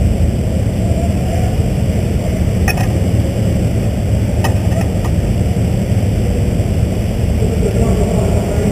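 Midget race car engine running steadily at low revs, heard as a dense low sound through an onboard camera on the roll cage, with a few light clicks near the middle.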